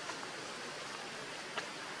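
Steady outdoor background hiss with two short clicks, about a second and a half apart, the second the sharper.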